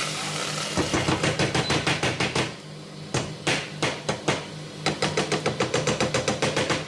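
Runs of rapid, regular knocking, about five or six knocks a second, three times over, above the steady hum of a microwave oven running.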